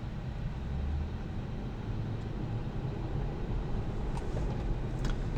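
Steady road and tyre noise inside a Tesla Model 3's cabin while driving, low and even, with no engine note.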